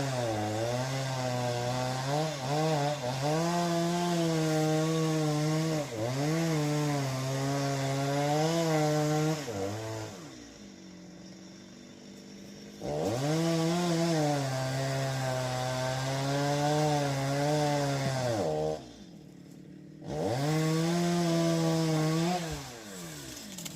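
Two-stroke chainsaw cutting wood, its engine running at high speed with the pitch wavering and dipping under load. It comes in three long bursts, dropping away to a much quieter level about ten seconds in and again about eighteen seconds in.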